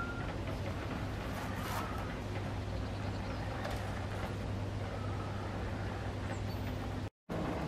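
Steady outdoor background rumble with a low hum, with a few faint bird chirps over it; the sound drops out completely for a moment near the end.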